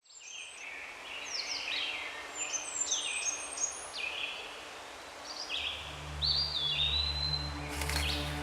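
Several birds calling, a busy run of short chirps and whistles over a faint outdoor hiss. About five and a half seconds in, a low steady music drone comes in beneath them.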